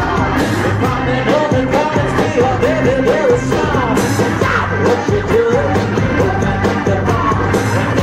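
Live band music: electric organ over a steady drum beat, with a man and a woman singing and shouting into microphones.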